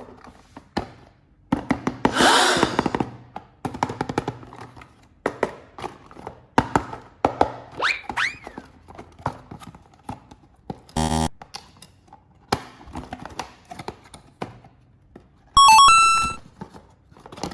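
Scattered small clicks and knocks, with a swish about two seconds in and a short buzz a little past the middle. Near the end comes a bright electronic jingle of stepped beeping tones.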